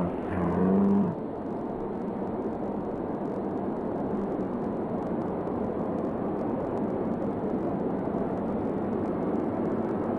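Large arena crowd cheering, a steady roar that slowly grows louder.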